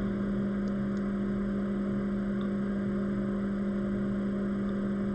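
Steady low hum from the repair bench's electrical equipment, one strong low tone holding level.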